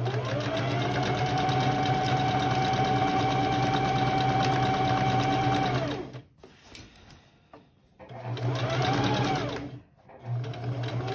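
Electric sewing machine stitching a seam through cloth. It runs steadily for about six seconds, its motor pitch rising as it starts and falling as it stops, then makes two shorter runs of about two seconds each.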